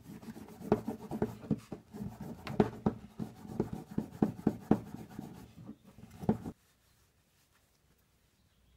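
Steel wool scrubbing paint off a painted metal bicycle wheel hub, a run of quick, irregular scratchy strokes that stops abruptly about six and a half seconds in.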